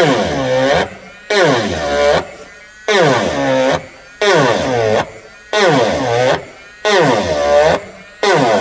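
Rotary engraving tool with a ball burr, bitten into the painted gold-chrome panel about once a second. Each contact gives a buzzing grind lasting most of a second, its pitch dipping under the load and rising again as the burr lifts.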